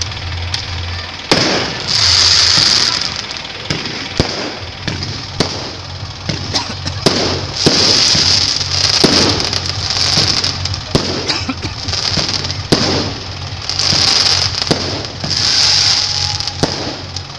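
Fireworks display: aerial shells going off overhead in a string of sharp bangs, with repeated spells of high hissing crackle about a second long between them.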